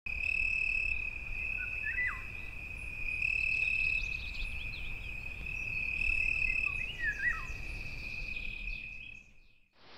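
Nature ambience: an insect trilling steadily on one high pitch, with a few short bird calls that sweep down in pitch about two seconds in and again around seven seconds, fading out near the end.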